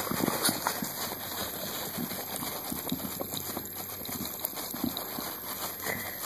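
A dog eating: irregular chewing and mouth smacks, several short clicks a second.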